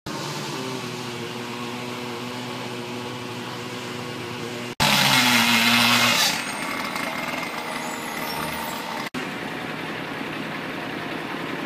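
An engine running steadily at an even pitch, across several short spliced clips. About five seconds in, a much louder hiss rises over it for about a second and a half, then falls back.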